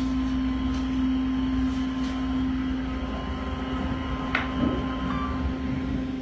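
Passenger elevator car in motion, heard from inside the car: a steady hum over a low rumble, with one sharp click about four seconds in.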